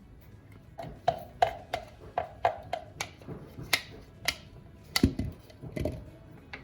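A spoon striking a container while cream cheese is scooped in: a run of sharp clinks, about two or three a second, each with a short ringing tone, then a couple of duller knocks near the end.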